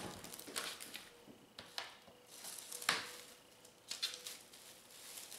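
Plastic cling film rustling and crinkling as it is stretched over a metal sheet pan and tucked around the edges, with a few light sharp taps.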